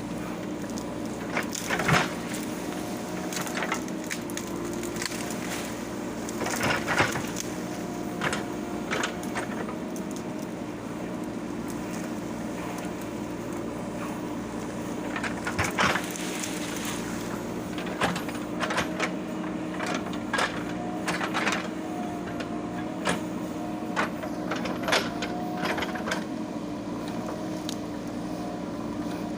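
JCB 3DX Super backhoe loader's diesel engine running steadily under load, with repeated sharp cracks and knocks as it works through brush and branches.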